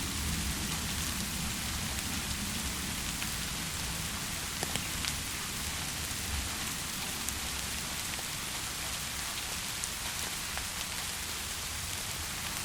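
Steady rain falling, a constant hiss with scattered sharper drop ticks and a low rumble underneath.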